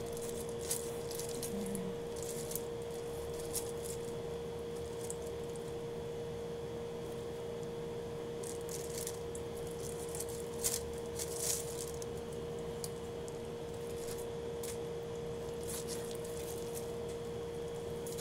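Kitchen knife slicing cooked octopus on a plastic-covered chopping board: irregular soft cuts and sharp knocks of the blade on the board, over a steady hum.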